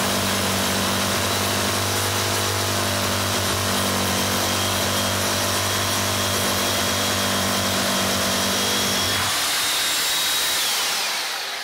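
Titan TTB653 SDS drill and hammer drilling into a very hard concrete block, running steadily under load. About nine seconds in the deeper working sound stops, leaving a high motor whine that falls in pitch as the drill winds down near the end.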